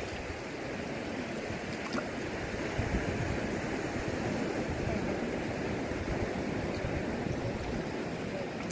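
Steady wash of sea surf, an even rushing noise with a low uneven rumble beneath it.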